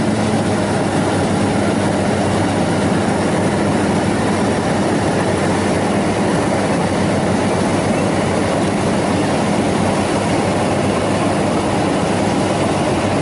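Yanmar 82 rice combine harvester running steadily: a constant engine hum under the dense rattle of its threshing and grain-handling machinery.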